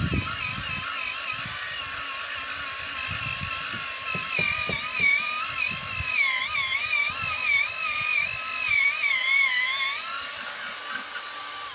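Small power drill boring down into soil for a fence post hole, its motor whine wavering in pitch as the load changes, with low knocks from the bit in the ground.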